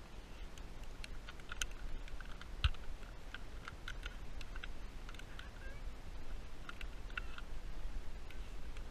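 Many light, irregular clicks and ticks over a low steady rumble, with one sharper knock about three seconds in.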